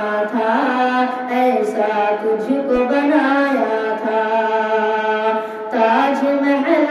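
A boy singing an Urdu patriotic nazm solo into a microphone, drawing out long, wavering melodic notes, with a short pause about five and a half seconds in before the next phrase.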